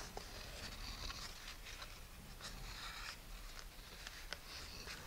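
Faint, soft scratchy rustling with a few light ticks as string is wound by hand around a model rocket's body tube and hinges.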